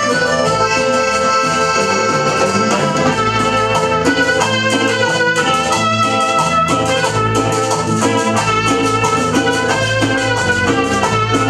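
Live cumbia band playing an instrumental passage: accordion melody over electric bass and keyboard, driven by a steady beat of drums and a scraped metal güira.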